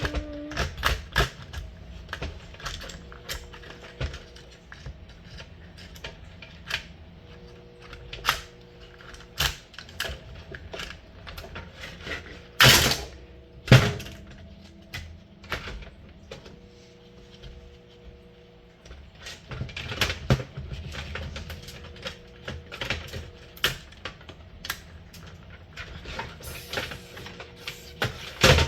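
Irregular clicks, taps and rattles of a Timex alarm clock's small plastic parts being handled and pried apart during disassembly, with two louder knocks about halfway through.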